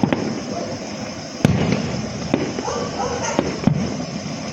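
Fireworks going off: a string of sharp bangs, the loudest about a second and a half in, over a constant hiss.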